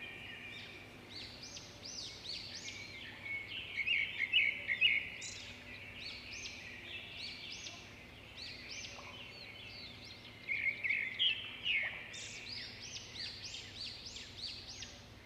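Several birds chirping and calling at once, a dense run of short, overlapping high calls, with louder flurries about four seconds in and again near eleven seconds.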